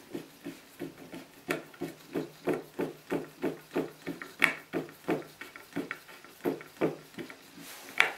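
Small screws being driven by hand with a screwdriver into a chipboard cabinet's back panel, each wrist turn giving a short creak, about three a second. A sharper, louder click comes about four and a half seconds in and again near the end.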